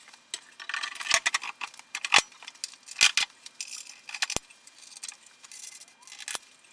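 Metal-on-metal handling: a heavy flanged bearing housing being worked into the cast frame of an air power hammer, giving about half a dozen sharp clinks and knocks with rattling and scraping between them.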